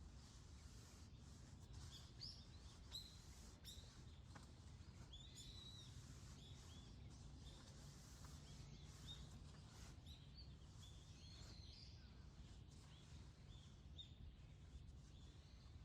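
Faint, scattered chirps of small birds over a steady low background rumble of outdoor ambience at dawn.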